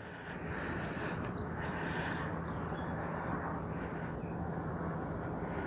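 Steady outdoor ambience: a low, even drone with a faint steady insect hum and a few faint bird chirps.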